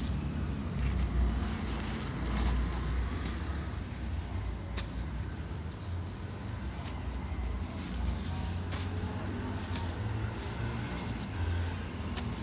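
A hand digging into and squeezing dry red dirt, with a gritty crunching of grains and crumbling lumps and scattered sharp clicks, over a steady low rumble.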